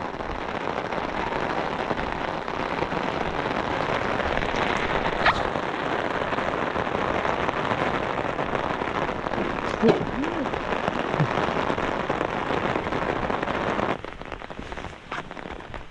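Heavy rain falling steadily. The sound drops noticeably about fourteen seconds in.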